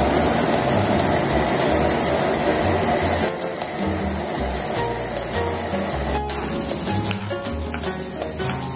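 Tomato-and-pepper sauce sizzling in a frying pan, loudest for the first three seconds as lemon juice is squeezed in, over background music with a repeating bass line. A single sharp knock comes about six seconds in.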